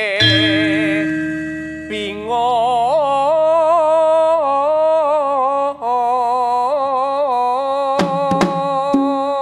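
Javanese tembang-style singing with gamelan accompaniment: one voice holds long notes with a wide, wavering vibrato. A deep struck note rings out just after the start, and a few sharp drum strokes come near the end.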